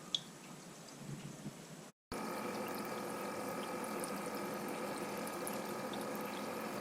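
Gulab jamun dough balls deep-frying in vegetable oil in a wok, the oil sizzling and bubbling steadily, with a faint steady hum underneath. A single click sounds at the very start. About two seconds in the sound cuts out briefly, and after that the frying is louder.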